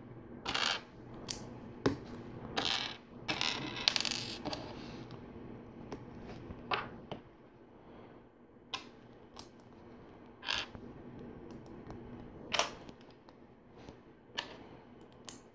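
Small plastic LEGO pieces clicking and clattering as they are handled and snapped together. A busy run of rattling in the first few seconds, then single sharp clicks every second or two.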